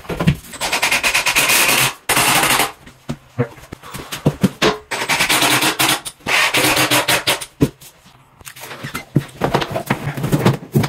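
Thin hardboard and melamine panels being handled and slid across the particleboard edges of a flat-pack wardrobe carcass. They scrape and rattle in several loud stretches of about a second each, with short pauses between.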